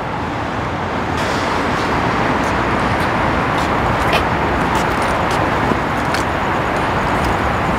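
Steady rush of freeway traffic, an even wash of tyre and engine noise with no single vehicle standing out.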